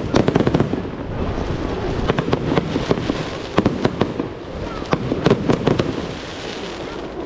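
Aerial fireworks display: shells bursting with many sharp bangs in quick clusters, the heaviest about half a second in, around two to three seconds in, and around five seconds in, over a continuous dense rumble.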